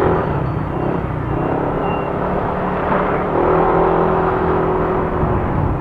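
Motorcycle engine running steadily while riding, with a continuous low hum and road noise.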